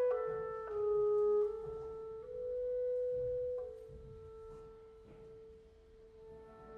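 Solo clarinet playing slow, held notes over a faint orchestral accompaniment. The line grows very soft a little past halfway, almost dying away, then swells again near the end.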